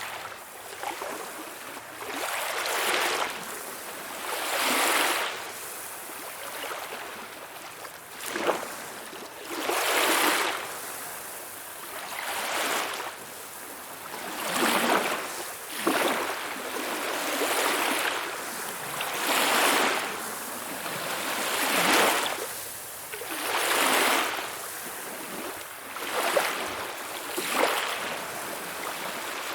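Small waves splashing: water rising and falling in repeated swells every two to three seconds, some with a sharper splash.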